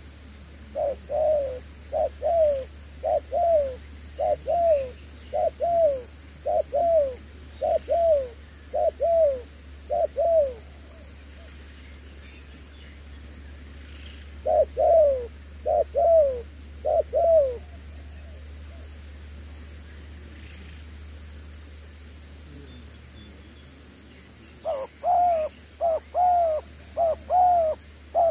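Spotted dove cooing: runs of short, falling coos at about one a second, each a quick doubled note, in three bouts with pauses of several seconds between them.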